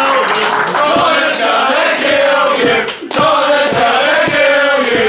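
Wrestling crowd chanting in unison, with a short break about three seconds in.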